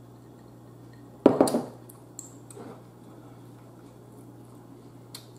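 Tableware knocking on a table: one sharp clink about a second in with a brief ring, then a few faint lighter clicks.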